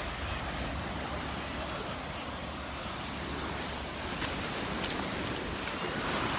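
Surf washing onto the beach, a steady rushing noise, with wind buffeting the microphone.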